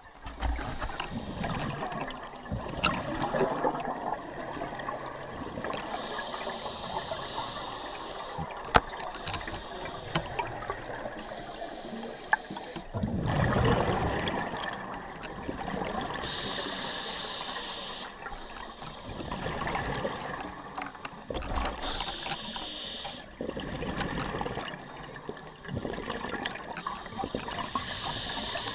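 Scuba regulator breathing heard underwater: a hissing inhale about every five seconds, alternating with bubbling exhales. A few sharp clicks cut through, the loudest about nine seconds in.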